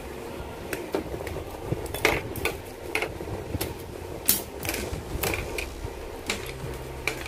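Irregular sharp plastic clicks and snips from building a gunpla model kit: small styrene parts pressed together, then hobby side cutters nipping parts off the plastic runners. The loudest snip comes a little past halfway.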